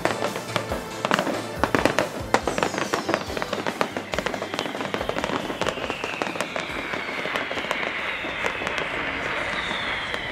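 Fireworks display: a rapid barrage of bangs and crackling bursts, densest in the first half and thinning out, with falling whistling tones in the second half. Background music plays underneath.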